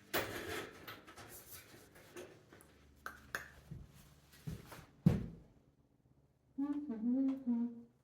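Clatter and knocks of single-wall stove pipe being handled and fitted together, with one heavy thud about five seconds in. Near the end, a short bit of a person humming.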